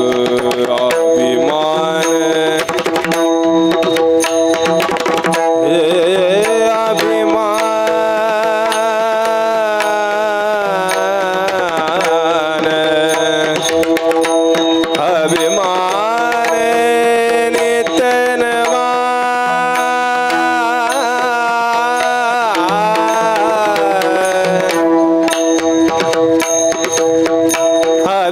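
Devotional abhang music: pakhawaj drumming, fast and dense in the first few seconds, under a steady held drone, with a long, high, ornamented wordless vocal line winding over it through the middle.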